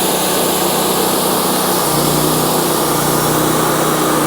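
Wood-Mizer LT40 sawmill's 26.5-horsepower G28 engine running steadily as the band saw head feeds forward through a log; the engine's pitch drops slightly about two seconds in.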